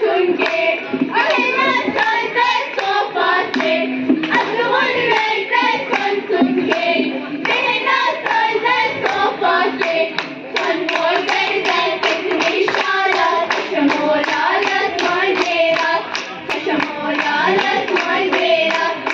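A group of girls singing a folk song together, with hand claps keeping a steady beat.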